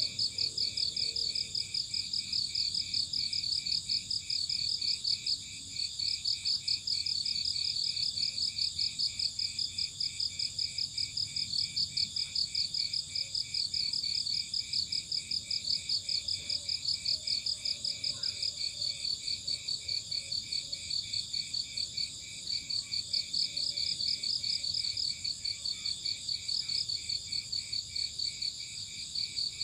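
Crickets chirping in fast, even pulses over a steady high ringing, with the pulsing dropping out briefly about six seconds in and again past twenty seconds.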